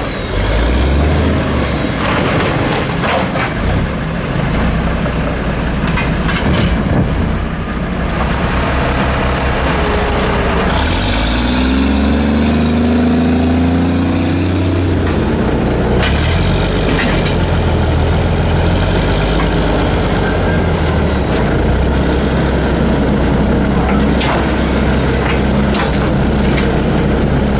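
Diesel engine of a 1982 American LaFrance CTC garbage truck running steadily, rising in pitch for a few seconds about 11 seconds in. Scattered knocks and clanks come from its Heil Formula 7000 automated side-loader arm and cart.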